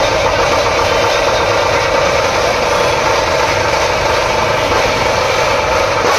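Dhol-tasha ensemble drumming: dhols and tashas played together in a loud, steady wall of sound with no single beat standing out.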